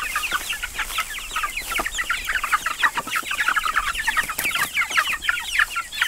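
A flock of month-old Black Jersey Giant meat chicks peeping continuously, many short, falling cheeps overlapping.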